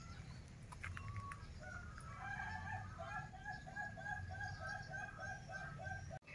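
A chicken calling in a steady run of about a dozen clucks, roughly three a second, cut off abruptly near the end.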